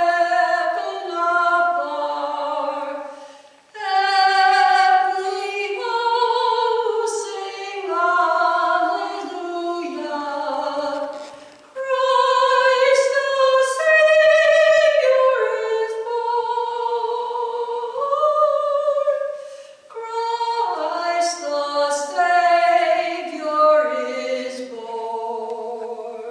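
Church choir singing, mostly upper voices, in long phrases with short breaks between them; the last phrase dies away near the end.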